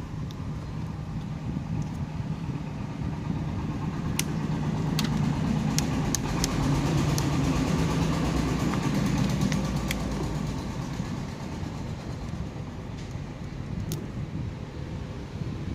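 A low engine hum that builds up, holds for a few seconds and fades away, as from a passing vehicle, with scattered sharp clicks over it.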